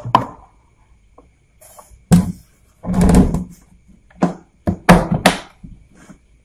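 Handling sounds from the homemade egg incubator: a series of sharp knocks and thuds, with a half-second scrape near the middle.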